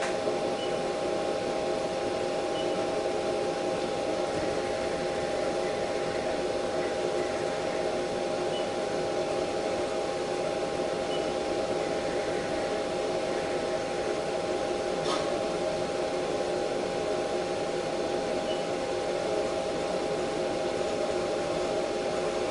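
Machine tool running steadily, a constant whine of several steady tones over a hiss, with a single sharp click about fifteen seconds in.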